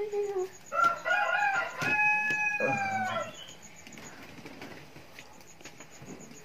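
A rooster crowing once: a few short broken notes, then a long held note that drops slightly in pitch as it ends.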